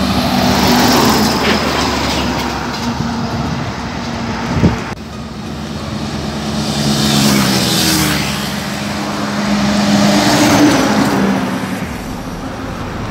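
Heavy diesel trucks and motorcycles passing on a highway. A truck's engine drones past close at the start, and motorcycles and more trucks follow, so the traffic noise swells and fades three times. There is one sharp knock about four and a half seconds in.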